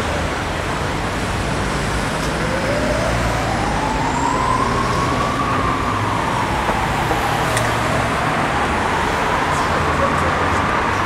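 Steady city street traffic noise. From about two seconds in, a single slow tone rises, falls and rises again above the traffic.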